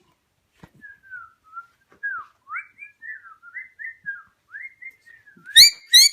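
Parrot whistling a run of short notes that slide up and down, then two loud harsh squawks near the end.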